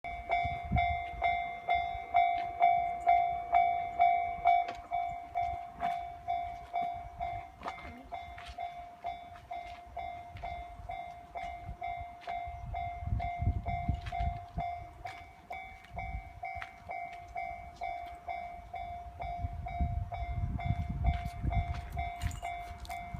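Japanese level-crossing warning bell ringing its 'kan-kan' alarm, a little over two strikes a second, each ring fading before the next. It is loudest at first, and a low rumble swells up twice, around the middle and near the end.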